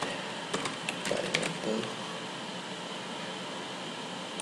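Computer keyboard typing: a quick run of key clicks over the first second and a half or so, then a steady low hiss for the rest.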